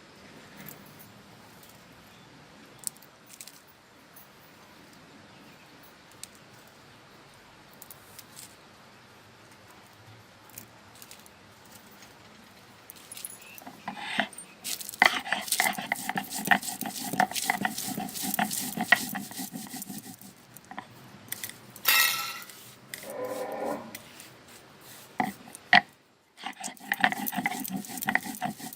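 A stone roller is rubbed back and forth on a flat grinding stone (sil-batta), making a rhythmic gritty scraping. It starts about halfway in, after a quiet stretch with a few light clicks, breaks off briefly and resumes near the end. A short, louder pitched sound cuts in about two-thirds of the way through.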